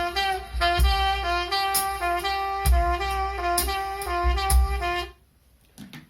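Sony HCD-RX900 mini hi-fi system playing instrumental music, a saxophone lead with held notes over a deep bass beat, heard through a phone's microphone; the music stops about five seconds in.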